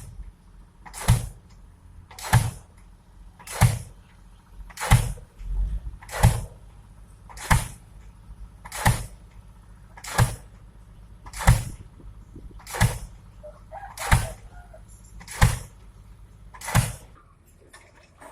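Diesel pile hammer driving a pile: a sharp bang a little over once a second, about fourteen blows in a steady rhythm, stopping shortly before the end.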